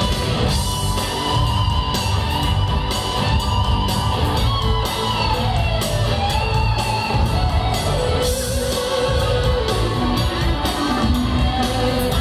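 Live band playing a rock song through a loud PA, with electric guitar and drums under a held, gliding melody line.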